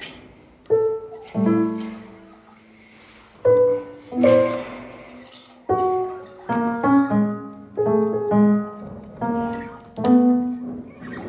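Background piano music: single notes and small chords struck at a slow, uneven pace, each ringing out and fading.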